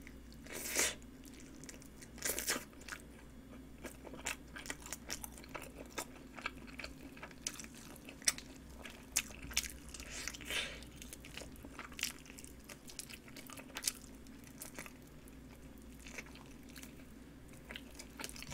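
Close-up eating of a sauce-glazed chicken drumstick: the skin and meat crunching and crackling in many small irregular clicks as it is bitten and chewed, with a few louder bites among them.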